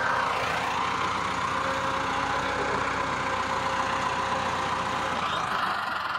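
Farm tractor's diesel engine running steadily while it pulls a trolley loaded with stones up a slope.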